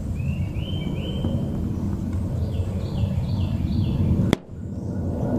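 A hot-glued pull tab on a bridge-style dent puller lets go of the truck's steel roof panel with one sharp snap about four seconds in, as the puller's knob is slowly tightened.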